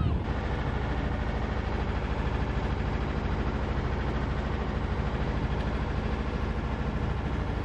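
Sailboat's auxiliary engine running steadily under way, an even, fast-pulsing drone.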